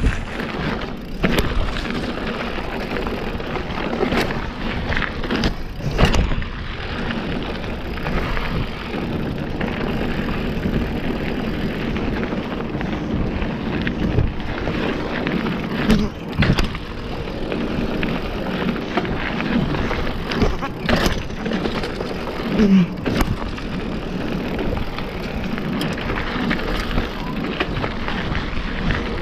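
Mountain bike rolling down a dirt trail: steady tyre and rolling noise, broken by frequent sharp knocks and rattles as the bike hits bumps.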